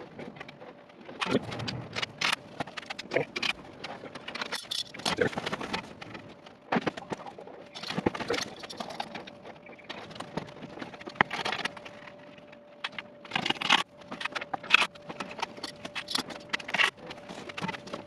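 Irregular knocks, taps and clatter of melamine particleboard panels and a clamp being handled and fitted together during cabinet assembly. A faint steady hum runs under the second half.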